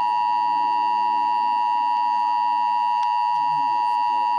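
Emergency alert attention tone: a loud, steady electronic tone held without a break. It signals that a weather warning broadcast is about to follow.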